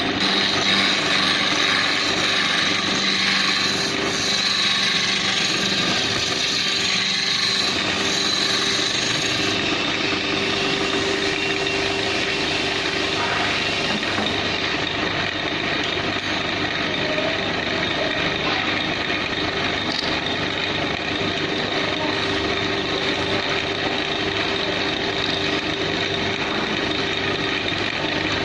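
Wood lathe running steadily with a steady hum, while a turning tool scrapes and cuts the spinning wood of a table leg. The hiss of the cut drops off somewhat about halfway through.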